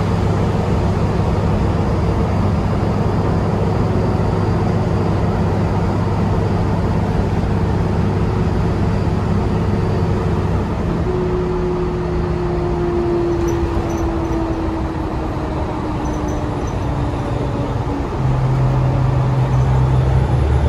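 Cabin sound of a New Flyer Xcelsior XDE60 diesel-electric hybrid articulated bus under way at road speed: a steady low hum from its Cummins L9 diesel and BAE HybriDrive series-hybrid drive, over road noise. About halfway a tone slowly falls in pitch for several seconds, and about three seconds before the end the hum steps up louder with a new low note.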